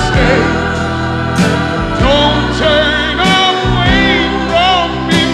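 Music: a song with singing, the voice holding long, wavering notes over a steady accompaniment.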